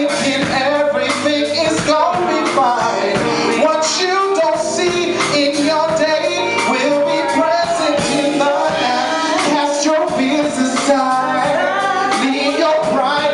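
Live band playing a gospel song, with singing over it.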